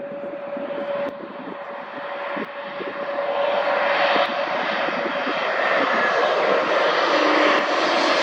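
Jet airliner's engines growing louder as it comes closer, a steady whine under a rising rush; the sound cuts off suddenly at the end.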